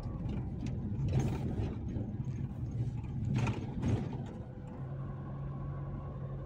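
In-cabin drive noise of a Nissan Navara pickup's turbo-diesel engine pulling at low speed, heard as a steady low hum under road noise. Two louder swells of rushing noise come about a second in and again about three and a half seconds in.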